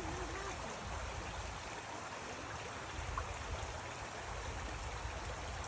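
Stream water flowing and rushing steadily.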